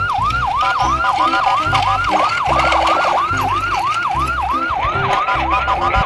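A siren-style wail that sweeps down and back up about three times a second, over a thumping bass line.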